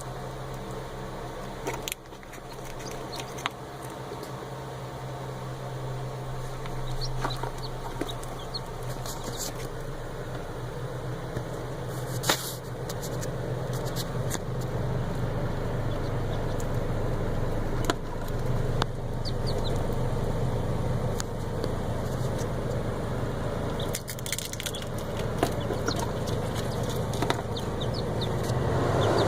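A newly hatching Coturnix quail chick peeping in short, high chirps, with a few sharp clicks and taps, over the steady hum of the incubator running.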